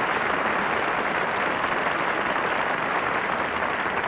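Studio audience applauding steadily as the host walks on and takes his place at the podium.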